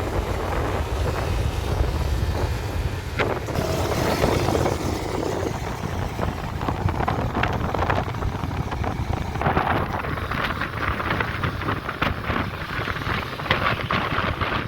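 Wind buffeting the microphone: a steady low rumble with scattered crackles.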